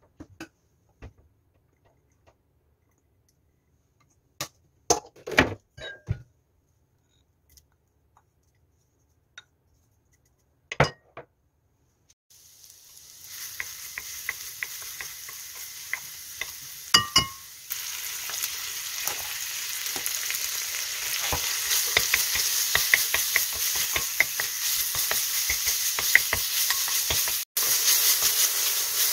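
A few sharp knocks and clinks against a pot, then minced garlic frying in sesame oil, with a wooden spatula scraping as it is stirred. The sizzle starts about twelve seconds in and grows louder; near the end soup beef is frying in the pot.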